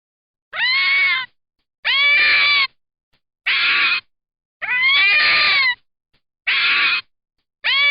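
A canid giving a series of six high-pitched calls, about one a second, each under a second long and rising then dipping slightly in pitch.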